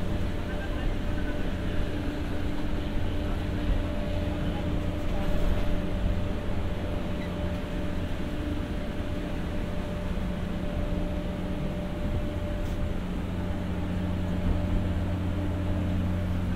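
Inside a former JR 203 series passenger car (KuHa 202-3) fitted with an onboard generator: the generator's steady hum of several fixed tones over the even running noise of the railcar.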